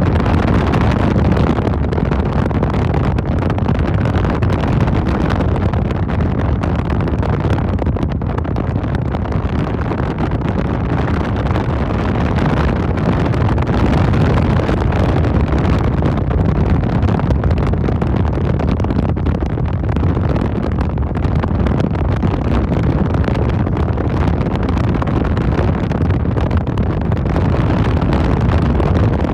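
Steady rumble of a vehicle driving along a road: engine and tyre noise that holds constant, with no clear changes.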